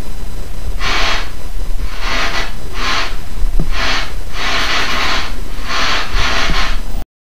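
Heavy, loud breathing close to the microphone, coming in rough breaths about once a second over a steady low rumble. It cuts off abruptly into silence about seven seconds in.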